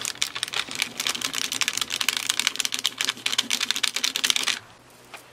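Rounded end of a Sharpie marker rubbed rapidly back and forth over a parchment rub-on transfer sheet on a wooden cutout, burnishing the images onto the wood. It is a fast, irregular run of scraping strokes that stops near the end.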